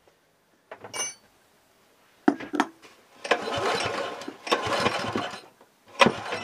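Honda GX160 single-cylinder engine turned over by hand on its recoil starter rope, three pulls of about a second each, after a light metallic clink and a couple of knocks. It is being cranked for a compression test and does not fire: the engine has very low compression.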